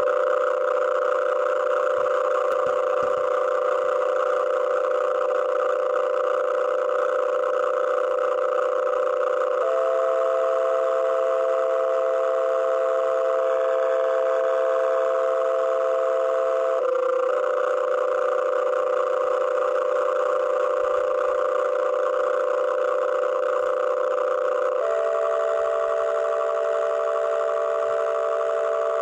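A steady cluster of held tones, like a sustained chord. The pitches shift to a new set about every seven or eight seconds.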